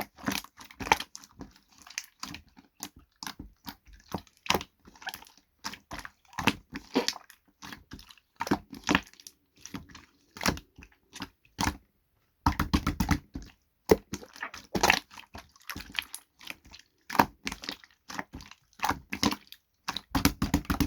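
Slime being squeezed and worked by hand, giving irregular wet clicks, pops and squishes, with quicker runs of clicks about twelve seconds in and again near the end.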